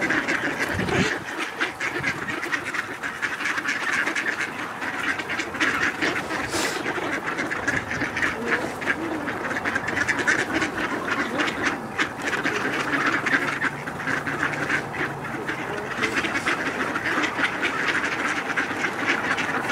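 A close-packed flock of mallards with green-winged teal among them, quacking and chattering without pause, many calls overlapping.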